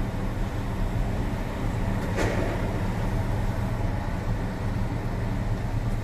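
Heavy truck's diesel engine idling, a steady low hum. A brief sharp sound cuts in about two seconds in.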